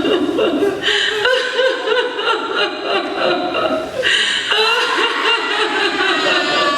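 People laughing and chuckling, a steady stretch of laughter.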